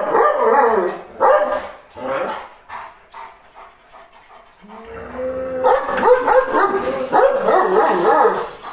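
Kangal dogs barking at each other across a kennel partition in a dominance contest. A run of barks comes at the start, then a lull around three to four seconds in, then a longer, denser stretch of barking near the end.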